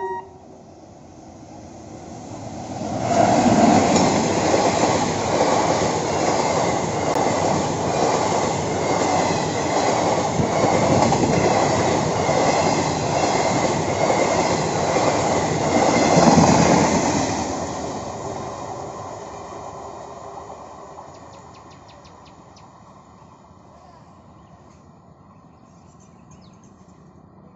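Indian Railways locomotive-hauled express train passing close by at speed: the rumble swells in over the first three seconds, the coach wheels clatter over the rail joints for about fourteen seconds, then the sound dies away over the next few seconds as the last coach goes by.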